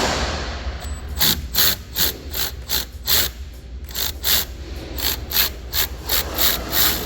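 Hand ratchet wrench clicking in steady strokes, about two and a half a second, as it backs out a long bolt.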